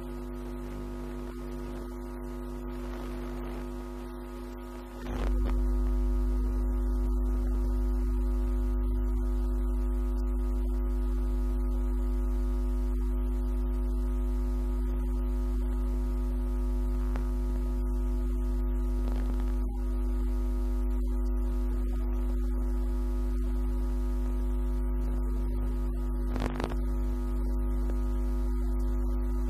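Loud, steady electrical mains hum: a low buzz with a ladder of steady overtones, which jumps sharply louder about five seconds in.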